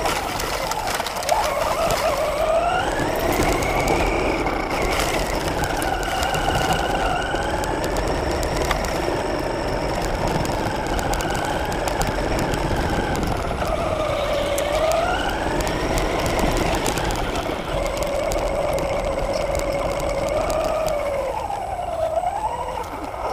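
RC car's motor heard from on board, its whine rising and falling in pitch every couple of seconds as the throttle is worked, with small ticks and rattles from the chassis on rough ground.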